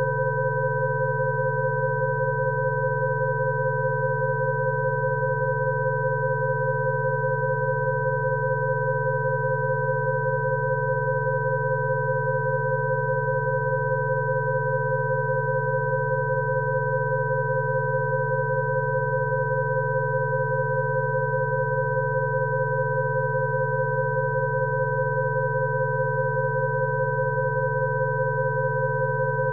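Rife frequency tones: several pure electronic sine tones at different pitches sounding together over a lower hum-like tone, held perfectly steady and unchanging.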